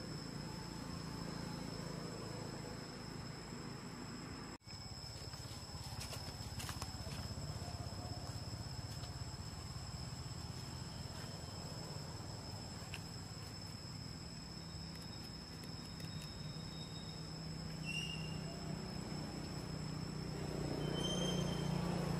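Steady high-pitched drone of forest insects, two held tones over a low rumble, with a few short high chirps near the end.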